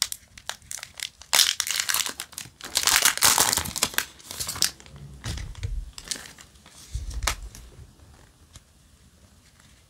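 Foil wrapper of a Yu-Gi-Oh! Mega Pack booster being torn open and crinkled by hand, loudest over the first few seconds. After that come lighter rustles and a couple of soft knocks as the card stack is slid out, fading near the end.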